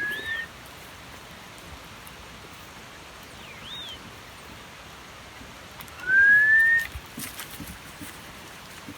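Short, clear whistles that rise in pitch, the loudest about six seconds in, with a fainter whistle that rises and falls in between, over a steady hiss.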